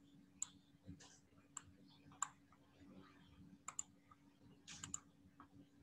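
Faint computer mouse clicks, about nine spread through, including two quick pairs like double-clicks, over a low steady hum.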